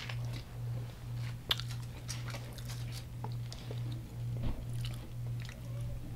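Close-up chewing and crunching of deep-fried, Hot Cheetos-crusted food, with scattered crisp crackles and one sharper crunch about a second and a half in.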